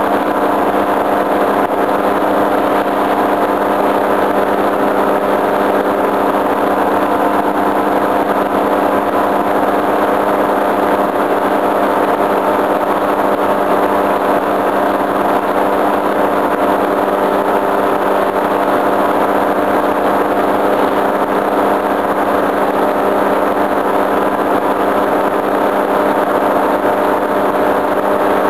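Tandem paramotor trike's engine and propeller running in flight at a steady, unchanging throttle: a continuous drone.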